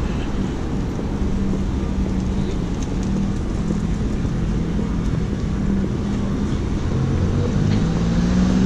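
City street traffic: cars and a small truck running along the road, a steady low engine hum and rumble that gets a little louder near the end.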